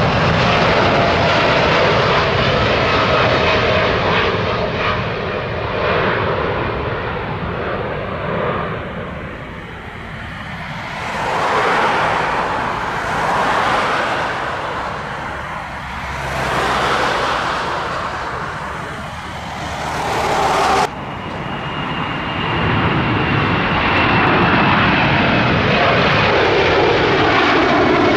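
Jet airliner engines at takeoff thrust, a dense steady roar with a high whine that slowly falls in pitch as the aircraft climbs past. The roar swells and fades several times. About two-thirds of the way through it cuts abruptly to another jet's takeoff roar, again with a slowly falling whine.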